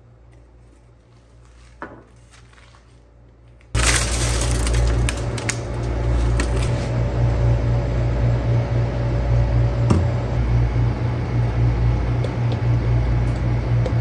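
A faint shaker click, then from about four seconds in a loud steady hum with a low drone and small clinks, while cooking oil is poured into a stainless steel pot.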